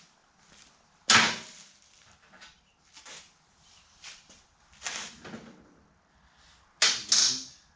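Three loud, sudden bursts of noise, about a second in, near the middle and near the end, each fading within half a second, with fainter clicks and knocks between, from hand work on a dirt bike's handlebar controls.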